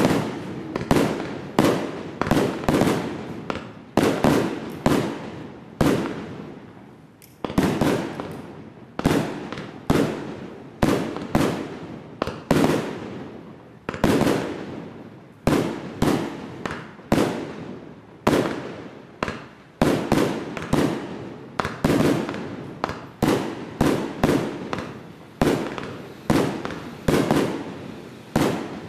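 Silver Fox consumer fireworks cake firing shot after shot, roughly one to two sharp bangs a second, each dying away quickly. The shots are silver coconut-tree shells.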